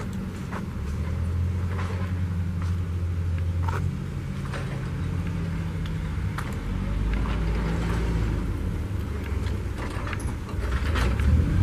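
An engine running steadily, its low hum shifting slightly in pitch, with scattered light clicks and taps.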